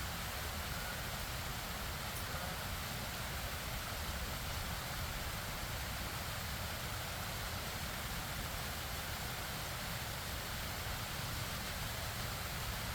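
Running stream water, a steady even rush with no breaks or changes.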